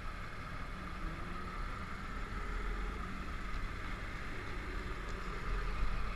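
Vintage fire truck's engine running with a low steady rumble as the truck drives slowly past.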